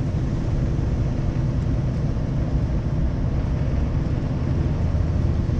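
Scania V8 lorry engine and road noise heard inside the cab while driving: a steady low rumble with a constant engine drone.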